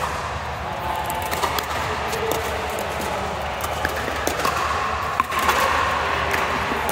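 Pickleball paddles striking the plastic ball and the ball bouncing on the court: irregular sharp pops, several a second at times, over steady background noise.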